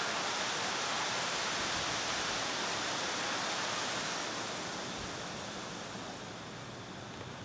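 Steady hiss of outdoor background noise that fades a little over the last few seconds.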